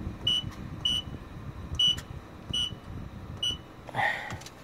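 Five short, high beeps from a car wash entry keypad as a code is punched in, one beep per key press, spaced unevenly about a second apart.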